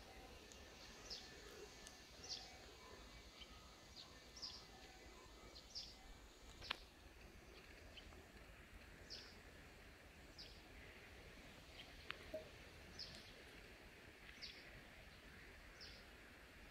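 Quiet outdoor ambience with a small bird giving short, high chirps, about one or two a second, and a single sharp click about seven seconds in.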